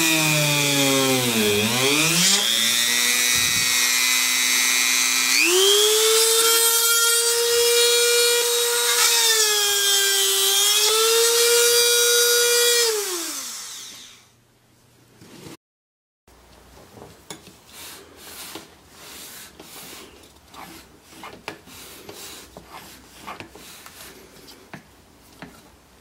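A rotary tool mounted in a wooden drill-press stand drilling into wood: a high whine that sags in pitch as the bit bites and climbs again, steps up in speed about five seconds in, then winds down around halfway. Afterwards only quiet light clicks and knocks of pieces being handled.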